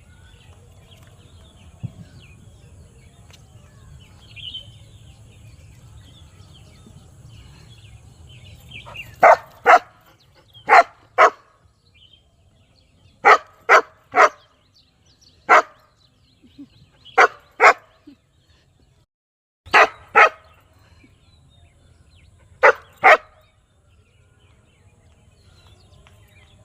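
A dog barking loudly in short volleys of two or three barks, starting about a third of the way in and repeating every few seconds.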